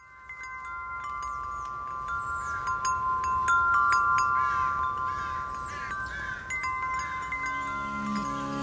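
Metal tube wind chimes ringing, struck again and again so that several clear tones overlap and hang in the air.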